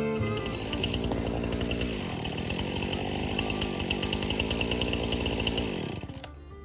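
Jonsered CS2255 two-stroke chainsaw cutting birch at high revs, its pitch wavering under load. About six seconds in, it winds down and the sound drops away.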